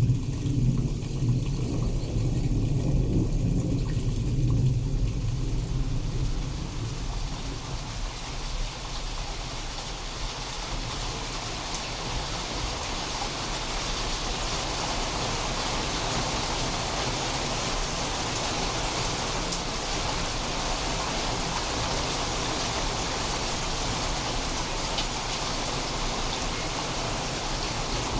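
Steady heavy rain falling during a thunderstorm, with a low rumble of thunder that dies away over the first several seconds.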